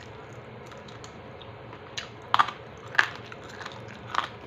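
Crispy chicharon crunching as it is bitten and chewed, with four or so sharp crunches in the second half.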